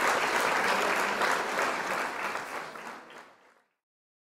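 Audience applauding, fading out to silence about three and a half seconds in.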